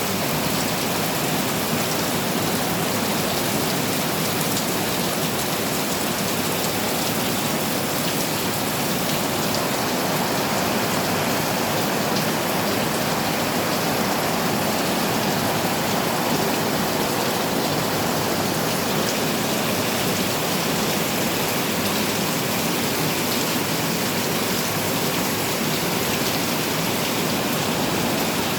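Heavy rain falling steadily, a dense even hiss of drops that neither builds nor fades.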